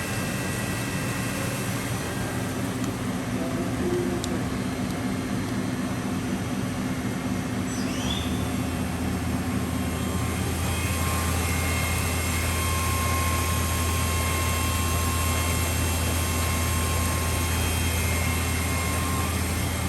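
Mori Seiki NH6300 DCG horizontal machining center running: a steady machine hum with several held tones. About eight seconds in, a deeper hum comes in and holds.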